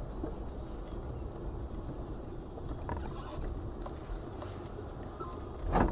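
Steady low rumble of a moving vehicle, as picked up by a dash camera, with a single loud thump near the end.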